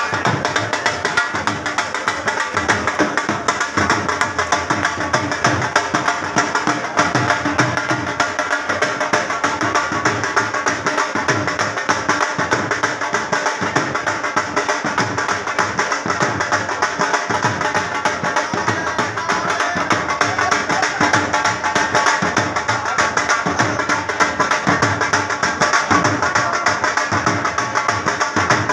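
Dhol drums beating a rapid, steady rhythm without a break.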